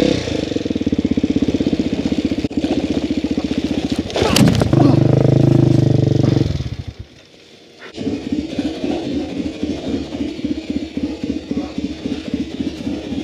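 Off-road motorcycle engine running under the rider on a dirt trail. It pulls harder and louder around four seconds in, drops almost to nothing for about a second near seven seconds in, then runs again with uneven, lumpy pulses.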